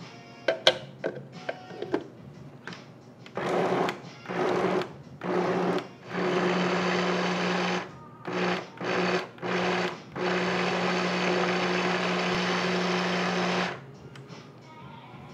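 Electric kitchen chopper motor switched on and off in short pulses, then run steadily for about three and a half seconds before cutting off. A few light clinks come before it.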